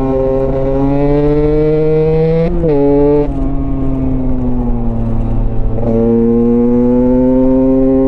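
Motorcycle engine running under way, its revs climbing slowly, then a quick change about two and a half seconds in after which the revs fall away. Near the six-second mark there is another sharp change, and the revs climb steadily again.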